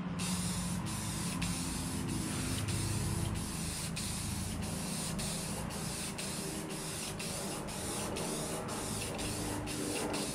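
Aerosol spray can of lacquer clear coat spraying in one steady, continuous hiss.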